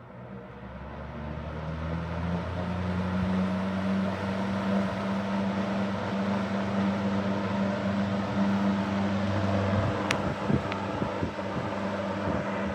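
Super Electric 1475 14-inch box fan on high speed, its electric motor humming and the blades pushing air, growing louder over the first couple of seconds as it comes up to speed and then running steadily. A few light clicks sound about ten seconds in and again near the end.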